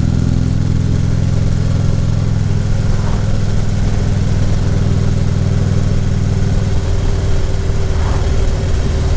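Harley-Davidson Ultra Classic Limited V-twin engine running steadily, its note shifting slightly about seven seconds in.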